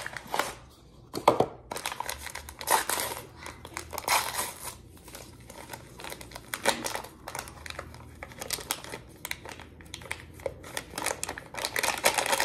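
Paper pouches of vanilla instant pudding mix crinkling and tearing as they are opened and shaken out, a run of irregular rustles and crackles with a few louder ones in the first few seconds.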